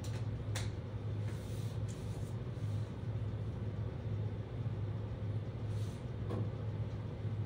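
Steady low hum of a room's background noise, with a few faint ticks, a couple near the start and one near the end.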